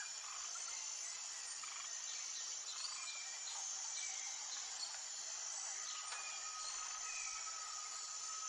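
Outdoor nature ambience: a steady high-pitched insect drone, with short bird chirps scattered through and one longer, steady call from about six seconds in.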